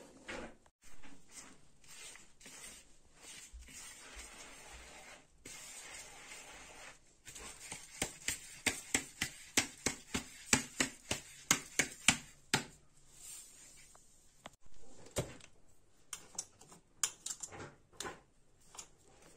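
Metal spoon clinking and scraping against steel containers while ground rice flour is scooped out. There is a quick run of sharp clicks, about three a second, midway, and then scattered clicks; the grinder's motor is not running.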